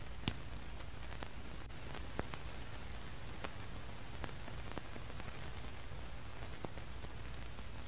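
Steady background hiss with faint, light clicks at irregular intervals, roughly one a second.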